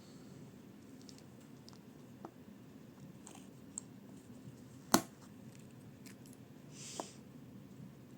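Small parts of a Uni Kurutoga Dive mechanical pencil clicking and tapping as it is taken apart and the pieces are set down. There are a few light clicks, with one sharp click about five seconds in and another, with a short rustle, near the end.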